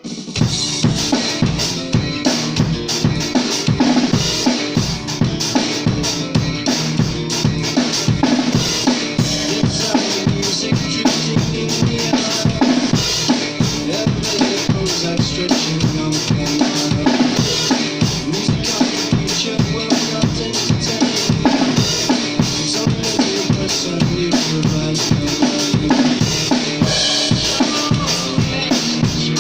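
Rock music led by a drum kit: a steady, even bass drum beat with snare hits and cymbals over sustained bass and guitar tones, starting abruptly at the opening.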